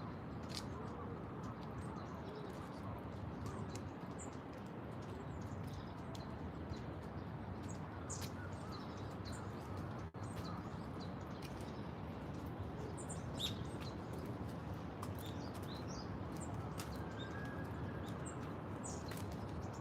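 Birds chirping in short, high calls scattered irregularly, over a steady low background hum of park ambience.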